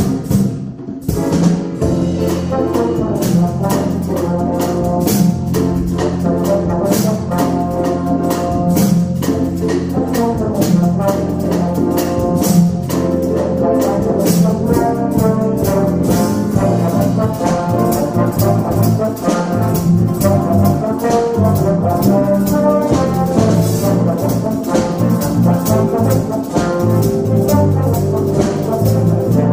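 Big band playing, with brass chords over a steady beat of conga drums and the rhythm section.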